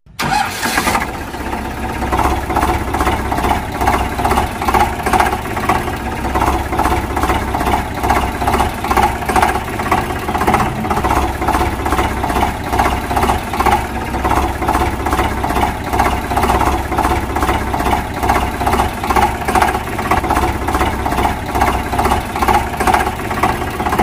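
Tractor engine sound running with a steady, rhythmic chug, laid over a toy tractor pulling a trolley.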